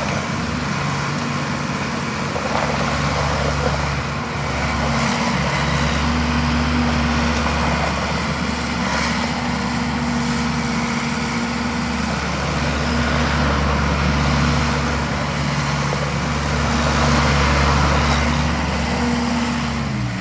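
Case 1845C skid steer's four-cylinder diesel engine running steadily, its engine speed dropping at the very end.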